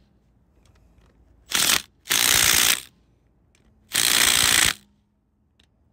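Milwaukee M18 cordless impact driver hammering hub cap bolts down on a trailer axle hub, in three bursts: a short one about a second and a half in, then two longer ones. The bolts are being snugged evenly all the way around over a new cap gasket.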